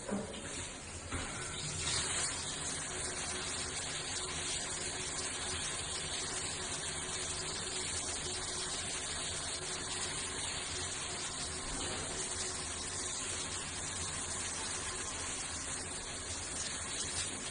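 Water running in a steady stream.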